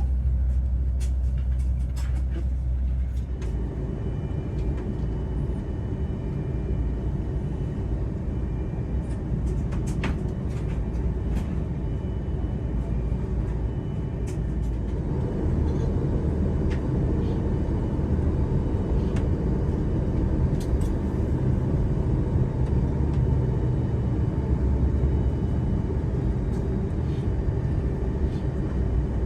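Steady low rumble of a moving vehicle heard from inside its cabin, with scattered clicks and rattles; it grows louder about halfway through.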